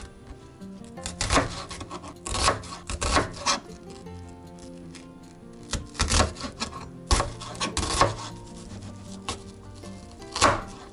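Kitchen knife cutting through an onion onto a plastic cutting board: irregular chops and sawing strokes, several in quick pairs, over background music.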